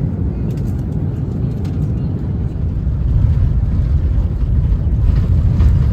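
Steady low rumble of a vehicle in motion, growing a little louder about halfway through, with faint voices and light clicks in the background.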